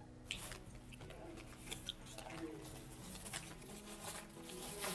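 Faint scattered clicks and light rustling from food and its takeaway packaging being handled.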